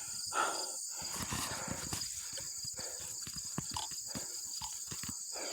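Crickets chirring steadily in a field, with a run of small clicks and rustles close to the microphone.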